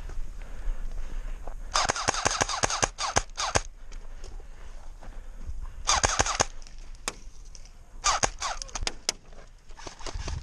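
Airsoft guns firing in rapid bursts of shots: a long burst about two seconds in, a shorter one about six seconds in, and another about eight seconds in.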